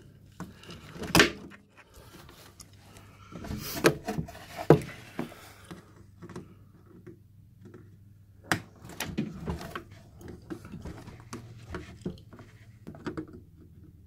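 Scattered clicks and knocks of long-nose pliers working plastic wire clips free from a washing machine's plastic tub housing. The sharpest snaps come about a second in, in a cluster around four to five seconds, and again near eight and a half seconds, with smaller ticks between.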